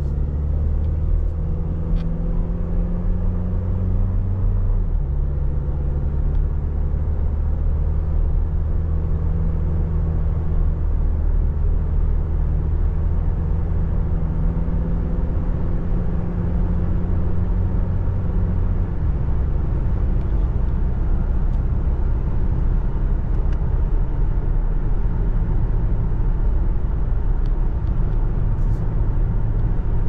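2023 Toyota Tacoma SR's 2.7-litre four-cylinder engine heard from inside the cab while accelerating, over steady road and tyre rumble. The engine note climbs and then drops as the automatic transmission upshifts, about five seconds in and again about nineteen seconds in.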